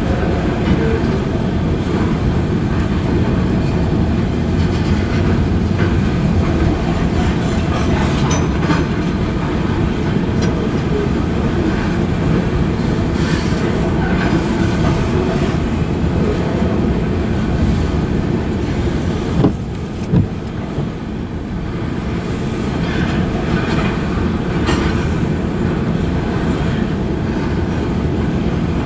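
Freight train's covered hopper cars rolling past: a steady heavy rumble of steel wheels on rail with clickety-clack over the rail joints. Two sharp bangs stand out a little after two-thirds of the way through.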